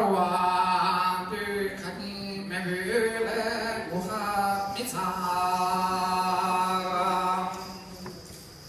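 Chant-like singing in a few long, held phrases over a steady low drone, fading out near the end.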